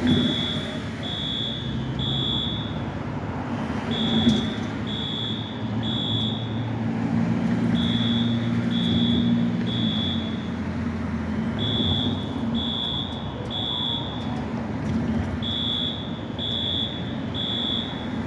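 Station fire alarm sounding the evacuation pattern: three high beeps about a second apart, then a short pause, repeating over and over above a low rumble.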